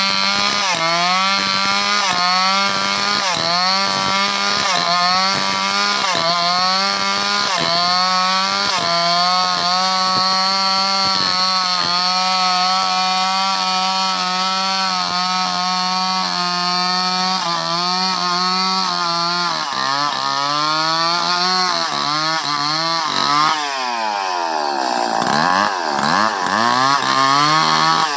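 Stihl 070 two-stroke chainsaw cutting lengthwise through a sengon timber, its engine running hard at a fairly steady pitch with repeated brief dips. About twenty seconds in the engine pitch drops, and from about 23 seconds it revs up and down repeatedly.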